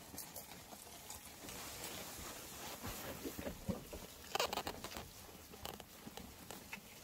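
Merino sheep eating fresh grass from a feed trough: many short crunching and tearing sounds as they pull and chew the blades, with a louder rustle of grass about four and a half seconds in.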